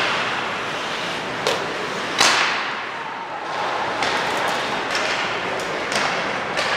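Sticks and puck cracking during ice hockey play, about six sharp knocks. The loudest, about two seconds in, echoes through the rink over steady arena noise.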